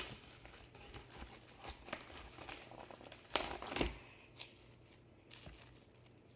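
Plastic cling wrap crinkling and rustling as it is handled and wrapped around a homemade squishy, in short irregular crackles, the loudest about three and a half seconds in.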